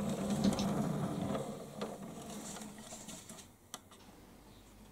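A hand-turned round turntable base rumbling as it rotates with a model locomotive on it, with a few light clicks. It stops about two and a half seconds in, leaving it quiet.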